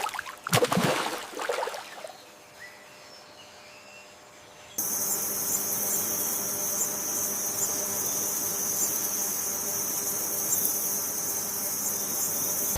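A few short loud bursts in the first two seconds. Then, about five seconds in, a steady high-pitched insect chorus starts abruptly and carries on, like crickets trilling.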